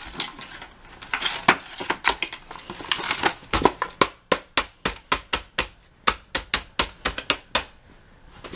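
A quick run of sharp clicks or taps, about four or five a second, starting about halfway through and stopping shortly before the end. Softer rustling and clatter come before it.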